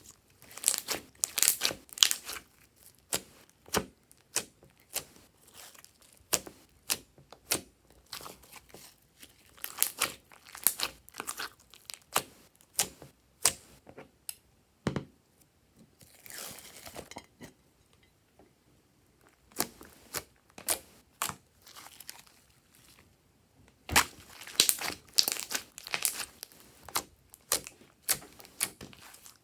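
Hands working slime: irregular sticky clicks and crackles, coming in dense clusters at the start, in the middle and near the end, with a short rustling patch a little past halfway.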